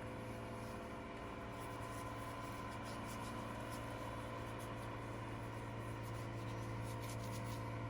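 Steady low drone of petrol tankers filling up, with faint, irregular scratching of a brush working paint stripper onto an alloy wheel.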